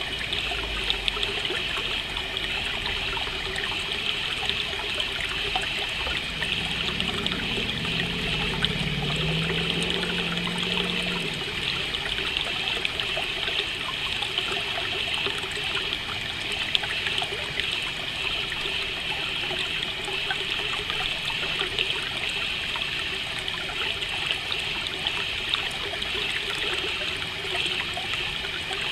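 Steady trickling stream, with a continuous high chirring of crickets.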